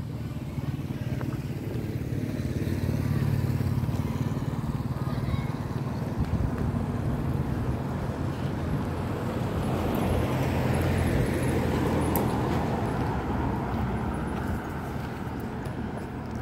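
Street traffic: a motorbike engine approaches and passes close by, loudest about ten to twelve seconds in, over a steady low engine hum.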